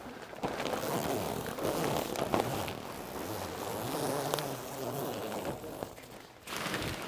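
Rustling and crackling of nylon awning wall fabric being handled and pulled into place, with scattered sharp ticks, stopping abruptly near the end.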